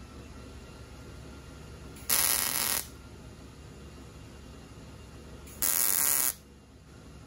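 Welder laying two short tack welds, each a loud crackling burst of about three-quarters of a second, about three and a half seconds apart, with a low steady hum between.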